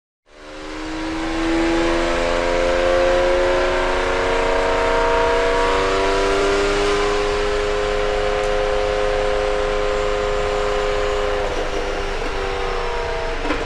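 Subaru WRX's turbocharged 2.5-litre flat-four engine running on a chassis dyno, fading in over the first second and a half, then holding a fairly steady pitch.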